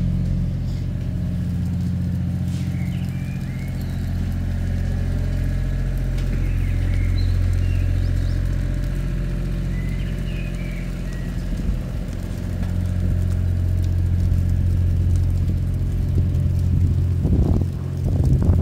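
Outdoor street ambience: a steady low rumble with short high chirps now and then, and a louder rushing swell near the end.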